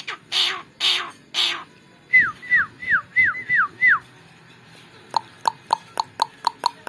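Javan myna calling: three short harsh rasps, then five clear whistles each falling in pitch, then a fast run of sharp ticking notes at about four a second.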